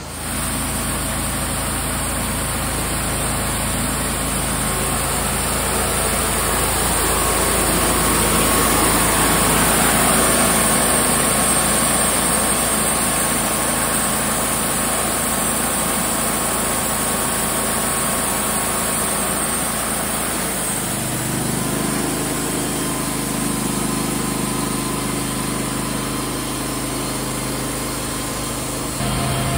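Wood-Mizer LT35 portable band sawmill running, its engine under load as the band blade saws a board off a southern yellow pine cant. About two-thirds of the way through, the engine note shifts.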